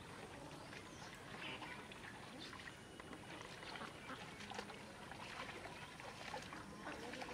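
Faint outdoor ambience with scattered short animal calls.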